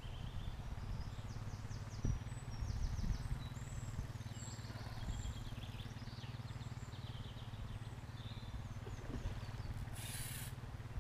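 Outdoor ambience: a steady low rumble with birds chirping high above it in short calls and trills, and a brief hiss about ten seconds in.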